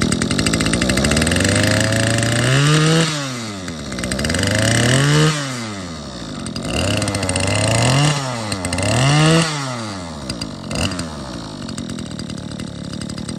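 Mitsubishi TLE24 two-stroke brush-cutter engine, its carburettor freshly cleaned, running and revved up and let back down four times, with a short blip after, then settling to a steady idle.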